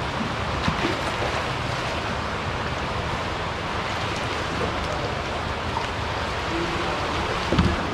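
Choppy saltwater sloshing steadily against concrete pier pilings and the kayak hull, with a low rumble, and a single dull thump near the end.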